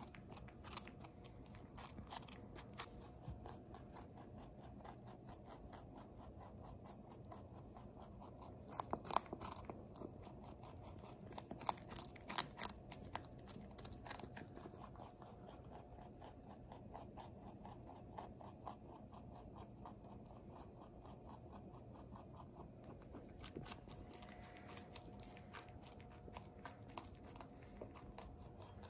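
A rabbit crunching and chewing baby carrots: a fast run of small crisp crunches that comes in louder bursts now and then.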